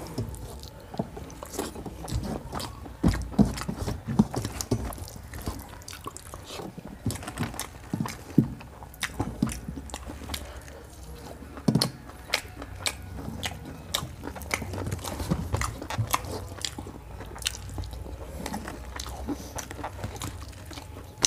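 Close-miked chewing and mouth sounds of a person eating rice and chicken curry by hand: irregular wet clicks and smacks, with fingers mixing rice in a steel plate.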